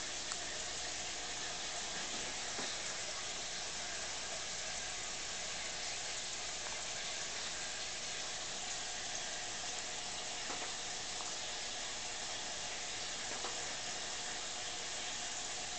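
Steady hiss of aquarium water being stirred and bubbled by the tank's filter or aeration, with a faint hum and a few soft ticks.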